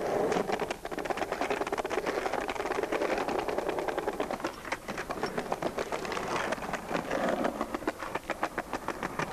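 Skateboard wheels rolling fast over paving-slab joints: a quick, steady clickety-clack of small clicks over a rolling rumble.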